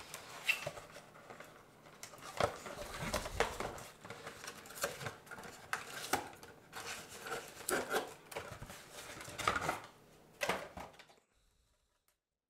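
Hands untying string and pulling plastic toy-kit parts free of a cardboard backing: irregular clicks, knocks and scraping of plastic against cardboard, with rustling. The handling stops about a second before the end.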